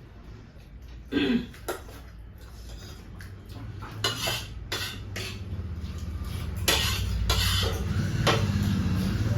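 Eating utensils clinking and scraping against bowls as people eat noodles, in scattered short clicks, with a short louder sound about a second in.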